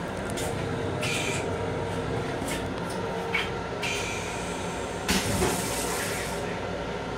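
M7 railcar toilet flushing: several short hissing spurts of water into the stainless steel bowl, the longest and loudest from about five to six and a half seconds in, over the steady rumble of the train running.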